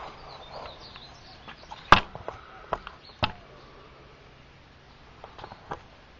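Sharp knocks and clicks of a camera being handled and set down on a table: the loudest about two seconds in, another about a second later, and a few smaller taps. Birds chirp faintly in the background.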